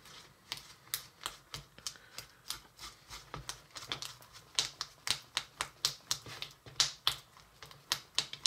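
A small spatula stirring thick icing in a plastic bowl, clicking and scraping against the bowl's sides in quick, uneven strokes, about two to three a second.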